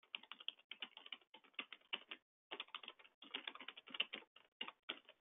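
Faint computer keyboard typing: a quick, uneven run of key clicks with a brief pause a little over two seconds in.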